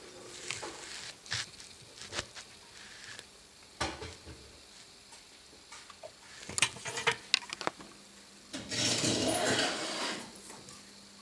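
Handling noise: scattered clicks and knocks, then a rustling hiss lasting about a second and a half near the end.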